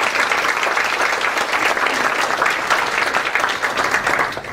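Audience applauding: a dense spell of clapping from a small roomful of people that dies away near the end.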